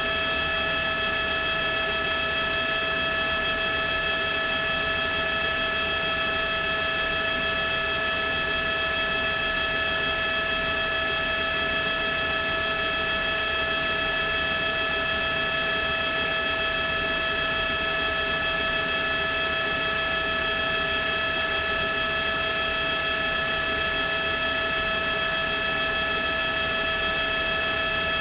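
Steady helicopter noise picked up aboard the aircraft: an even drone of engine and rotors with several high, steady whining tones over it that never change.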